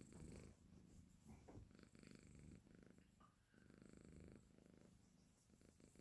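Exotic shorthair kitten purring faintly in its sleep, a low rumble that comes in stretches of about a second with short breaks between them.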